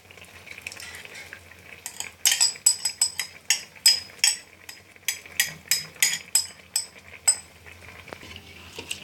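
Metal spoon scraping and knocking against a metal pan or bowl in a quick run of ringing clinks, two or three a second, as spinach puree is added to the chicken curry. The clinks start about two seconds in and stop a little after seven seconds.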